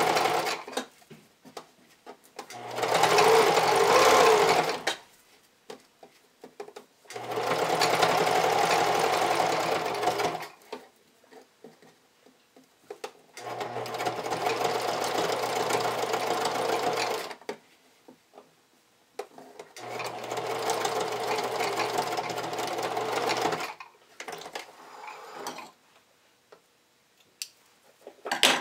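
Pfaff sewing machine running a straight stitch in four runs of about three to four seconds each, stopping between them, as it stitches down a folded elastic edge. Light clicks of handling fill the pauses, and a sharp click comes near the end.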